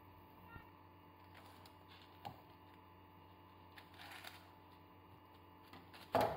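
Serrated knife sawing through a sponge cake layer: faint soft scraping with a few light ticks, then a sharp knock near the end as the knife is set down on the board.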